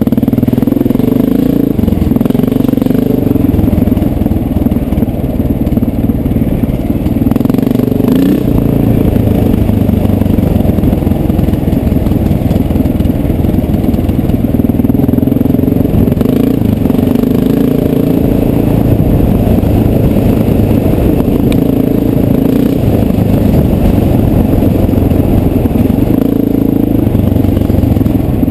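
1989 Honda XR600's air-cooled single-cylinder four-stroke engine running under load while the bike is ridden on a dirt trail, its note rising and falling with the throttle.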